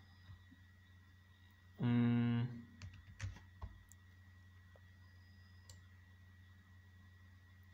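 Several sharp computer mouse clicks while text is being selected on screen. A short hummed 'mm' from a man's voice, about two seconds in, is the loudest sound. A faint steady hum lies underneath.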